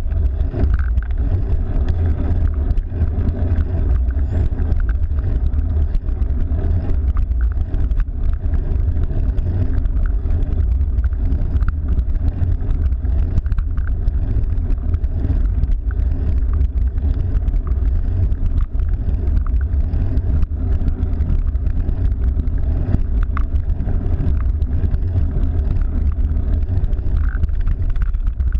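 Steady low rumble of wind buffeting the microphone on a moving cyclocross bike, mixed with tyre-on-road noise, with occasional faint clicks.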